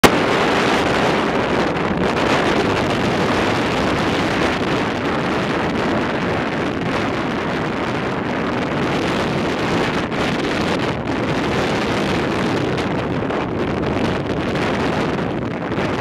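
Strong wind buffeting the microphone, a loud steady rush, over breaking ocean surf.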